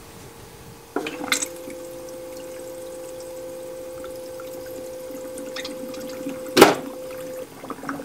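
Bluetti MultiCooler's running-water ice maker cycling: about a second in it starts with a click and runs with a steady hum and circulating water. A sharp knock comes near the end, and the hum stops shortly after.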